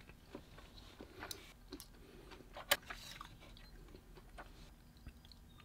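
Faint metallic clicks and light scraping as a hook blade is fitted into a folding utility knife, with one sharper click about two and a half seconds in.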